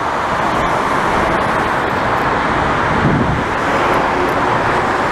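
Jet airliner's engines at takeoff thrust as it climbs away, a loud, steady rushing noise.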